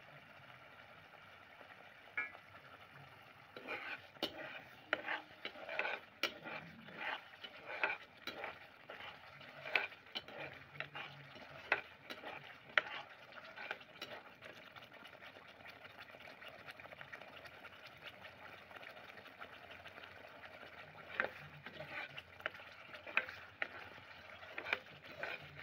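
A perforated metal skimmer stirring thick, bubbling rajma gravy in a metal pot, clinking and scraping against the pot in a quick run of knocks. It starts a few seconds in, pauses for several seconds, and resumes near the end, with the gravy simmering and sizzling underneath.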